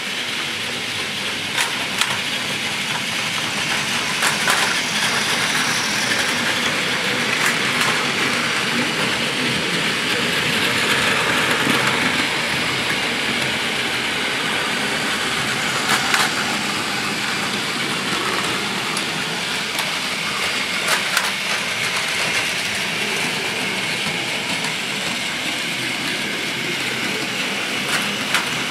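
Several battery-powered Plarail toy Shinkansen trains running together on plastic track: a steady whirr of their small motors and the rattle of their wheels on the track, with occasional sharp clicks.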